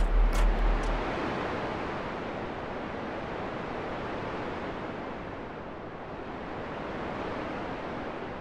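Steady rushing noise like wind. A low, rapid throbbing stops about a second in.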